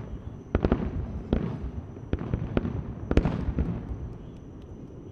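Fireworks finale: a rapid run of aerial shell bursts, each bang trailing off in a rolling echo, heaviest about three seconds in and thinning out near the end.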